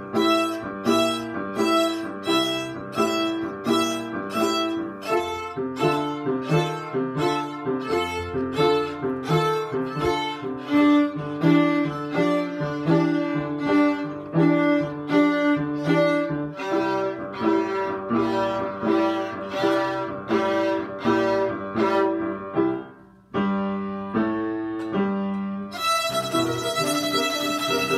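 Two violins playing a simple blues tune on open strings, bowing short, even notes about two a second. After a brief break they end on one long held note near the end.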